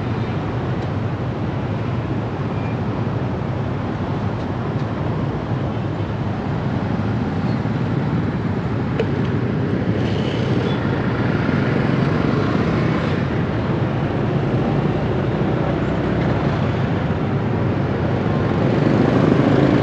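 Steady street traffic noise: a continuous low rumble of engines and tyres.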